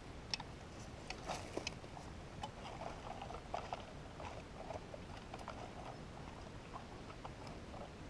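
Faint scratching, rustling and light ticks of a metal detector's coil brushing over dry leaf litter, twigs and loose dug soil as it is swept across the ground.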